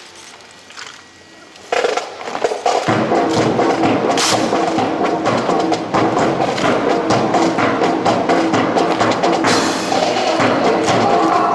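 Music with a steady percussive beat starts about two seconds in after a quiet opening and carries on loudly.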